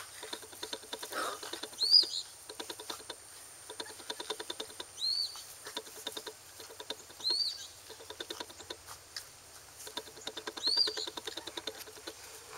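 Labrador puppies' claws and paws pattering and scratching on concrete in quick, irregular clicks, with a short high chirp four times, a few seconds apart.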